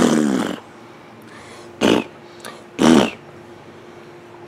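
Young child's short vocal outbursts during play, three of them: the first a half-second squeal falling in pitch, then two briefer ones.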